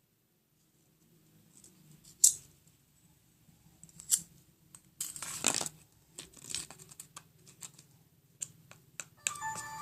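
Metal spoon scraping and clicking against another spoon and the bowl while working sticky glue-stick slime: scattered light taps, two sharper clicks, and a short stretch of scraping about five seconds in.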